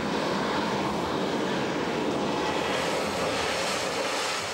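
Steady rushing, rumbling noise of a virtual-sport ride simulation, with no break or change in level.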